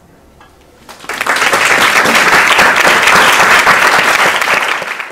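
Audience applauding, starting suddenly about a second in and cut off near the end.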